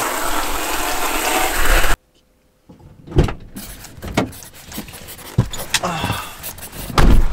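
Water hissing hard from a hose spray nozzle for about two seconds, cutting off suddenly. Then car-interior handling sounds as someone gets into the driver's seat: scattered clicks and knocks, and a loud thump near the end as the car door shuts.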